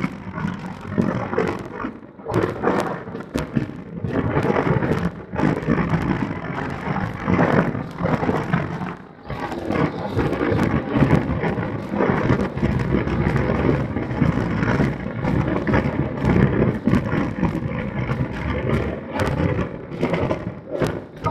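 Wind buffeting the microphone in loud, uneven gusts, a deep rumbling rush that eases briefly about nine seconds in.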